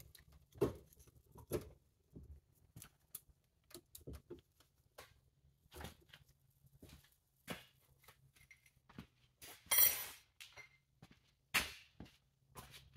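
Scattered light metal clicks and knocks of a Ford 9-inch differential carrier being set into its third-member case and parts handled on a workbench, with a louder clatter about ten seconds in.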